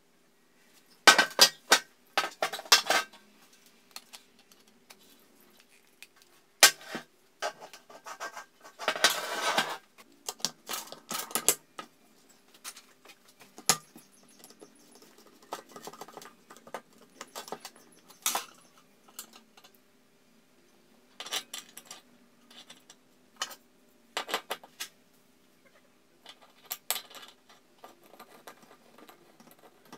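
Small metal parts and hand tools being handled: irregular clinks and clatters, with a few longer scraping stretches.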